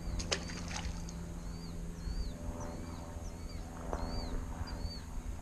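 A small fish splashes into the water about a third of a second in as it is tossed back. Under it runs a steady low rumble, and a faint high chirp repeats about twice a second.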